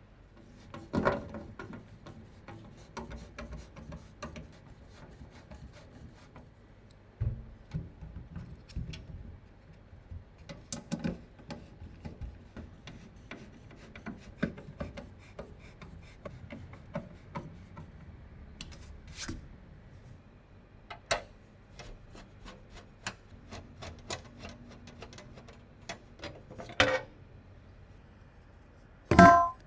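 Computer parts being handled and fitted by hand: irregular clicks, taps and rubbing, with a few sharper knocks, the loudest near the end.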